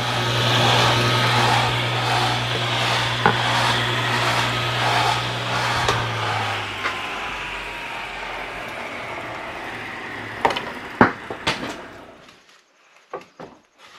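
Table saw running free after a rip cut, then switched off: the motor's hum and the blade's whir wind down over several seconds, the pitch falling. A few sharp knocks follow near the end.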